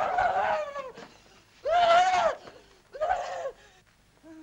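A woman screaming hysterically: three high, wordless cries, each rising and then falling in pitch.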